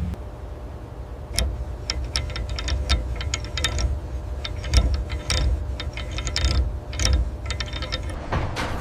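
Rapid clusters of sharp mechanical clicks and ticks over a steady low machine rumble.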